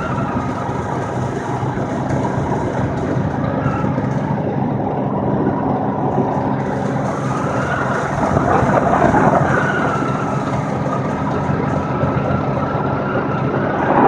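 Steady engine hum and tyre noise of a vehicle driving along a highway, heard from inside the vehicle, growing louder about eight seconds in.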